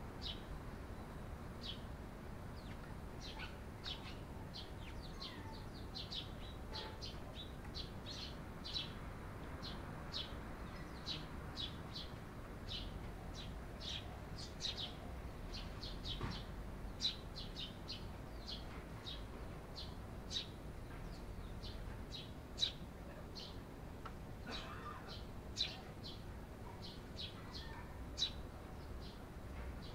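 Eurasian tree sparrows chirping: an irregular run of short, sharp chirps, several a second, with a few louder ones standing out.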